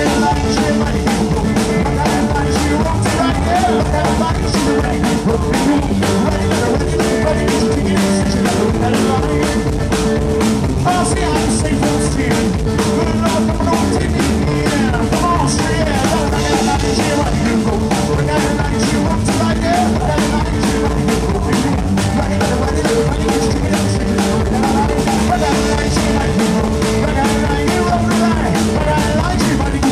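Live rockabilly band playing an instrumental passage: electric guitar lead over a steady drum-kit beat and upright bass, with no vocals.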